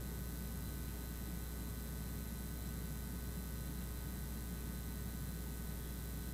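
Steady low electrical hum with a constant hiss over it, unchanging throughout: mains hum and background noise in the audio feed, with no voices or singing.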